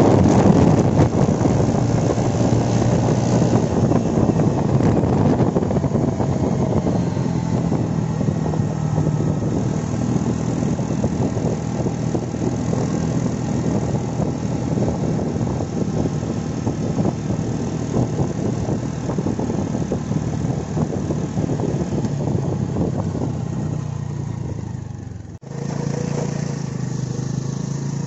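Motorcycle engine running steadily while riding, with wind rushing over the microphone, heaviest in the first few seconds. A brief dropout near the end, after which the engine carries on.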